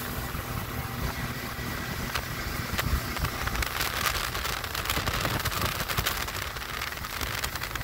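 Fishing boat running at speed across choppy water, powered by a Mercury Verado 250 outboard: a steady rush of wind and water over the engine, with frequent sharp crackles.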